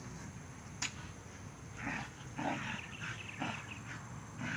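A dog giving a run of short barks and yips, several in quick succession from about two seconds in, after a single sharp click.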